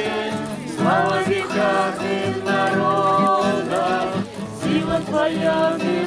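An acoustic guitar being strummed to accompany a small group of voices singing a song, with held, wavering sung notes.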